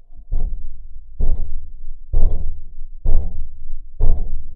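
Rusted steel body of an old truck being knocked on five times at an even pace, about one hit a second, picked up through a LOM GeoFon geophone contact microphone. Each hit is a dull, heavy knock that rings out briefly.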